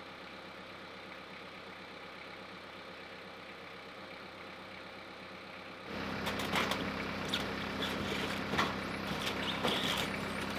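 An engine idling steadily with a low hum, coming in suddenly about six seconds in after a quieter stretch of even background noise, with scattered knocks and clatter over it.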